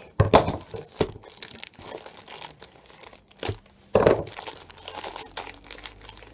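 Plastic wrapping crinkling and tearing as a rolled-up Yuxin cube mat is unwrapped by hand, in irregular rustles with louder bursts just after the start and about four seconds in.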